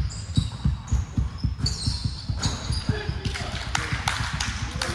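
Basketball game on a hardwood court: a quick irregular run of low thuds from balls bouncing and feet running on the wooden floor, with short high sneaker squeaks and players' calls in the background.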